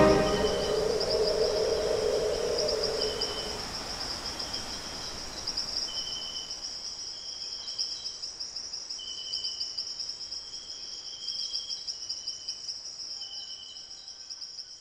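Insects trilling steadily in a high, finely pulsing chorus, with short chirps repeating every second or so at a lower pitch, gradually fading out. The last note of the music dies away in the first few seconds.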